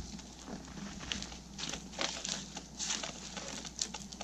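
Faint, irregular rustling and crunching, several soft crunches a second or so apart: a person moving about and handling things in the snow.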